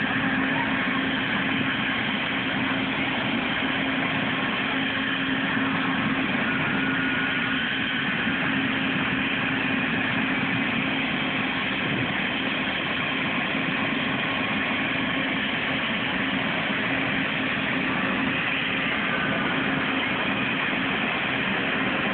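Medevac helicopter idling on the ground with its two-bladed main rotor turning: a steady, even turbine whine and rotor drone that neither rises nor falls.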